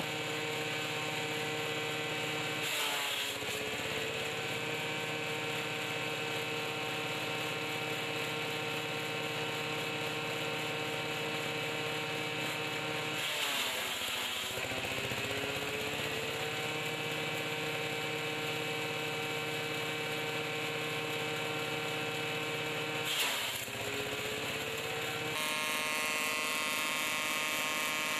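Power tiller's single-cylinder diesel engine driving a chaff cutter at steady speed, a continuous buzzing drone. Three times, about 3, 13 and 23 seconds in, the pitch sags with a burst of rough chopping noise as bundles of dry stalks are fed in and cut, then climbs back as the engine recovers from the load.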